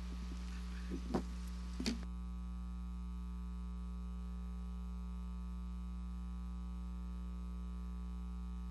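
Steady electrical mains hum from the sound system, with a few faint short knocks in the first two seconds. About two seconds in the background hiss drops away and only the hum is left.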